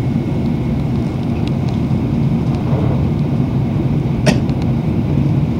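Steady low rumble of a Shinkansen bullet train running at speed, heard from inside the passenger cabin, with a single sharp click a little over four seconds in.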